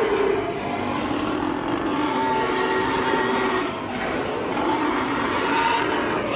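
Many pigs in a pig barn crying out together, a dense, continuous din.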